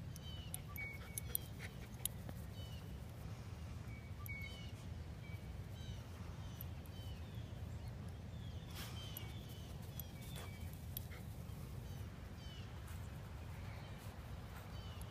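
Small birds chirping throughout in short, falling notes, over a steady low rumble. A few brief sniffs come from corgis nosing through the grass close by.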